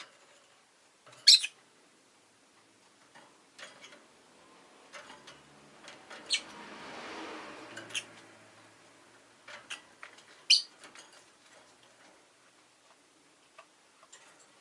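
Rosy-faced lovebird giving short, sharp chirps: a loud one about a second in and several more spread through, the others near the middle and later. In the middle a vehicle passes in the street, its noise swelling and fading.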